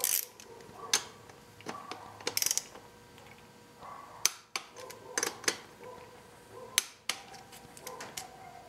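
Socket wrench tightening the rear brake caliper mounting bolts: sharp metallic clicks, a few single ones and a quick run of them about two seconds in.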